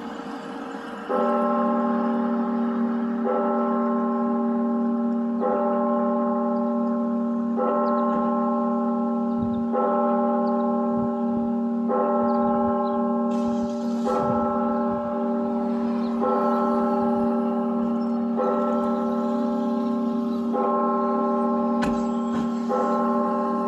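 Schulmerich NovaBell Gen 4 digital bell system tolling one sampled church bell through the tower's loudspeakers. The same note is struck about every two seconds, eleven times, each stroke ringing on under the next; the tolling starts about a second in.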